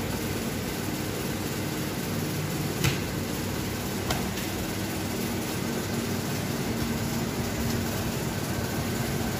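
Steady whirring hum of a room fan, with two light clicks about three and four seconds in.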